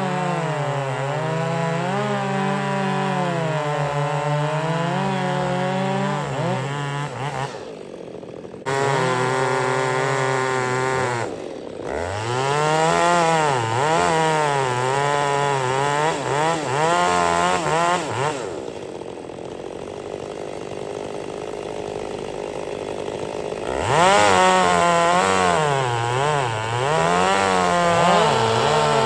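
Two-stroke chainsaw running and cutting, its engine pitch rising and falling as it loads and revs. It breaks off twice about a third of the way in and runs lower and steadier for a few seconds past the middle before revving hard again.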